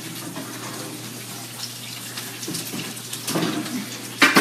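Hot roasting pan of lamb sizzling with a steady hiss, with a few light knocks and one loud metal clank near the end as cookware is set down.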